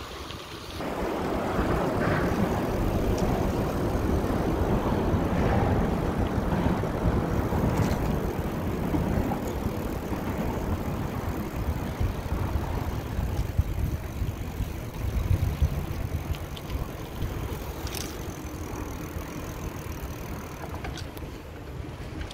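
Wind rumbling on the microphone while riding a bicycle. It is a steady low roar that picks up about a second in and eases a little in the second half.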